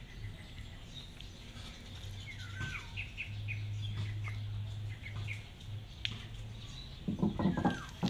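Small birds chirping in short, high notes, with a low steady hum under them in the middle. A brief louder voice-like sound near the end.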